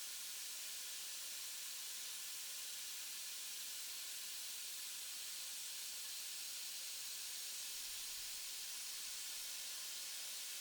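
Steady, even hiss.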